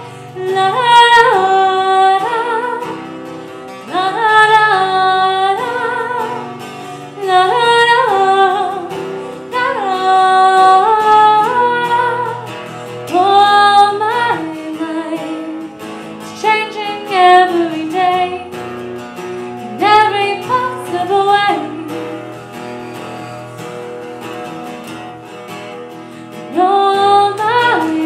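A woman singing a song, accompanied by a strummed acoustic guitar, in phrases with short breaks between them.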